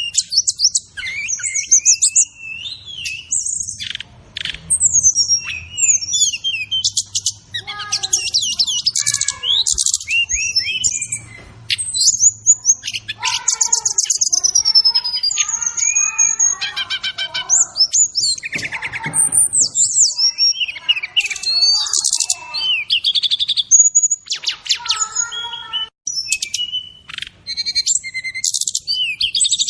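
Continuous varied birdsong of a sikatan rimba dada coklat (SRDC, brown-chested jungle flycatcher) as used for a masteran tutor recording: rapid high whistles, sliding notes and fast chirping trills one after another with only brief gaps, mixed with fill-in songs.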